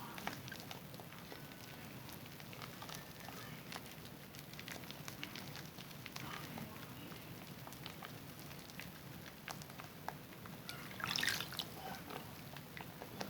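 Zest bar soap being lathered with wet hands: soft wet squishing and crackling of suds, with small drips, and a louder squish about eleven seconds in.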